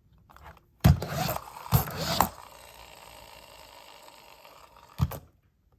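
Close handling and scraping of objects: sharp knocks about a second in, twice around two seconds, and once near the end, with a fainter scraping rustle between them.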